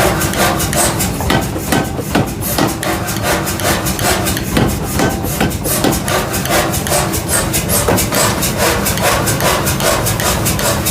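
Rapid, even hammer blows on metal, about six a second, over a steady low machine hum.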